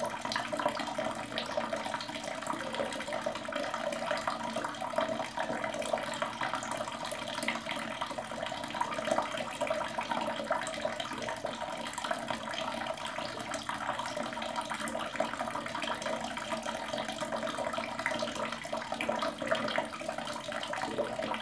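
Water running steadily from an open tap, with uneven splashing as cupped hands catch water and splash it over the face.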